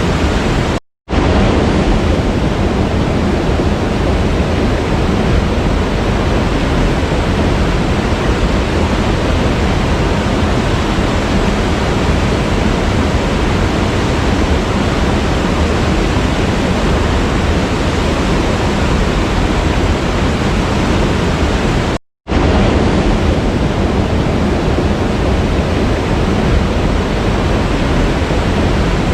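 Waterfall rushing with a steady, even roar of falling water. The sound cuts out abruptly for a split second twice, about a second in and again about three-quarters of the way through.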